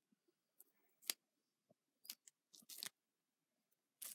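Homemade pink clear-glue slime being stretched and pulled between fingers, giving a string of faint sticky clicks and pops, the sharpest about a second in.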